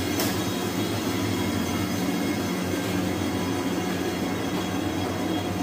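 Steady mechanical hum with a rushing noise underneath, from machinery running in the cutting room; a short click about a quarter second in.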